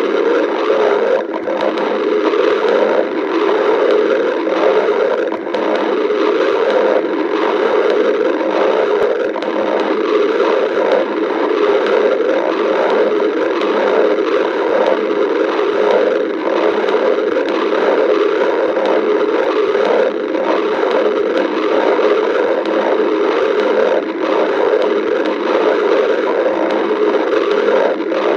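A hungry stomach growling: a continuous, shifting gurgle without pauses.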